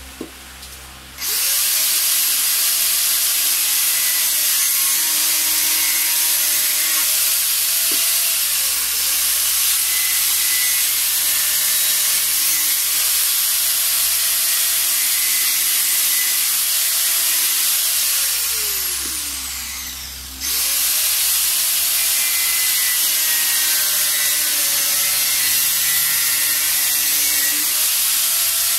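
Handheld electric grinder with a cutting disc trimming the rough edge off a fiberglass helmet shell. It starts about a second in, and its pitch dips each time the disc bites into the fiberglass. About two-thirds of the way through it is switched off and spins down, then starts again.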